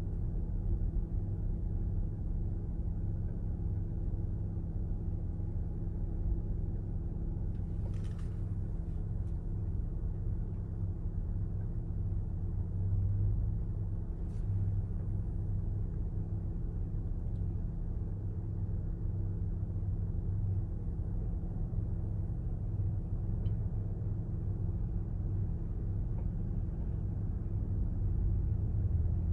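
Low, steady rumble of vehicle engines idling with a steady hum. Near the end a pickup truck passes close by and the rumble swells slightly.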